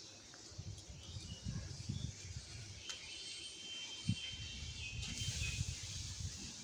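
Faint outdoor ambience with an irregular low rustle and rumble from the phone brushing through chili plant leaves, and a soft thump about four seconds in. A thin, steady high note sounds faintly for about two seconds midway.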